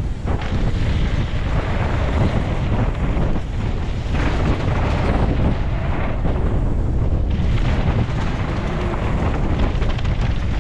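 Wind buffeting a helmet- or body-mounted camera's microphone on a fast mountain-bike descent: a steady rush heavy in the low end, broken by a few short knocks from the bike over the trail.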